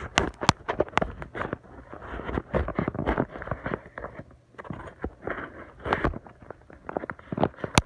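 Knife cutting into a cardboard biscuit box, with a busy run of irregular short scrapes and clicks as the cardboard is cut and handled.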